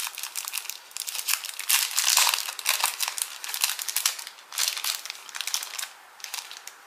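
Paper wipe sachets from a screen-protector kit crinkling as they are handled and turned over, a run of irregular crackles that thins out near the end.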